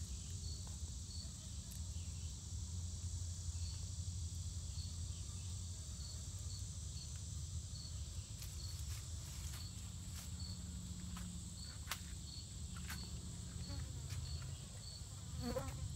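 Insects chirping: a steady high-pitched drone with a short chirp repeating about twice a second, over a low steady hum.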